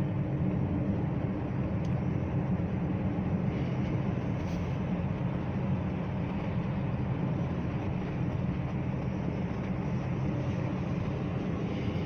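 Steady rumble of a moving car, heard from inside the cabin: engine and tyre noise while driving along a road.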